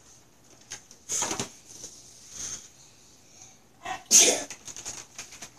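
Paper and cardboard packaging rustling and tearing as a present is unwrapped, in a few short bursts, the loudest about four seconds in.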